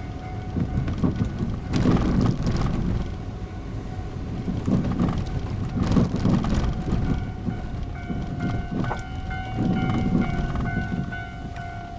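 A train running past on the rails, its rumble and wheel clatter swelling and easing several times. A level-crossing warning bell rings steadily over it.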